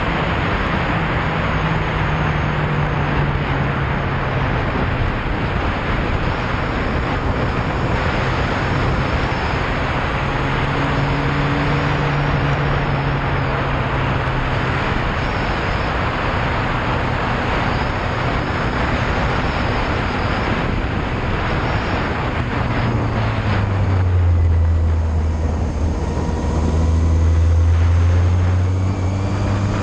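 Yamaha Fazer motorcycle riding at speed, with heavy wind rush on the microphone over the engine. About three quarters of the way through the wind dies down as the bike slows and the engine's deep note comes through louder.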